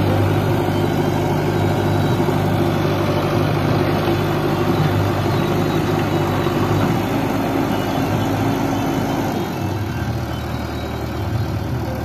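Diesel engine of a backhoe loader or tractor running steadily, its low note changing about three quarters of the way through.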